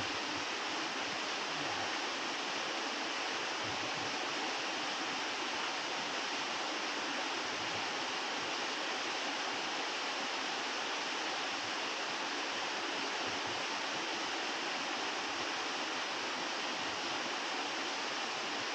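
Steady rush of water from a small waterfall, an even hiss with no change in level.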